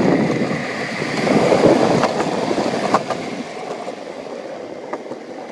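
Longboard wheels rolling over pavement, a steady rumble that fades off, with a few sharp clacks as the board crosses cracks.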